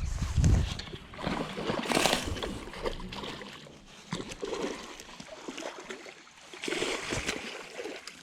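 Water splashing and sloshing, with the louder bursts about two seconds in and again around seven seconds, after a low rumble at the start.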